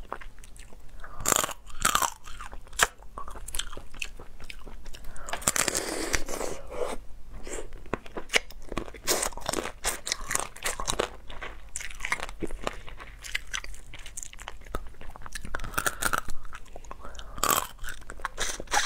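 Close, crisp crunching and cracking as the legs and shell of a cooked hairy crab are bitten, with chewing between bites. The sharp cracks come irregularly, many times over.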